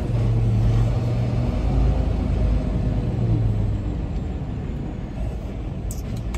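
Semi-truck diesel engine running at low revs while the truck is inched slowly into a tight space. Its pitch rises and falls briefly about three seconds in.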